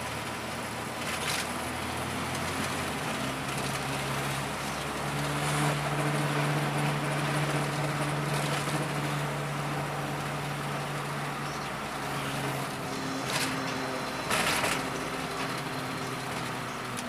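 A VW Voyage's carbureted AP four-cylinder engine running under way, heard from inside the cabin. Its note rises slightly about five seconds in, holds, and settles back about twelve seconds in, with a couple of faint knocks near the end.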